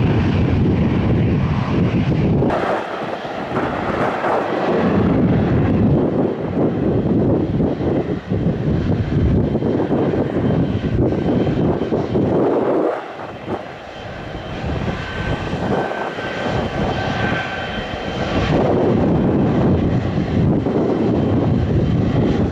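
Airliner engines running loud as an aircraft passes, a dense rushing noise that dips about halfway through and builds again near the end.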